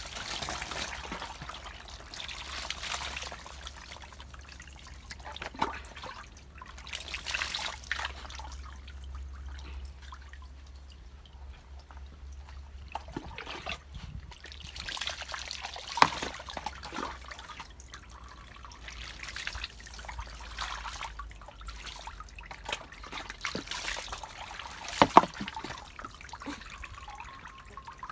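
Water poured from a plastic dipper over a small dog being bathed, splashing and trickling down into the tub beneath, in several separate pours. Two sharp knocks stand out, about halfway through and near the end.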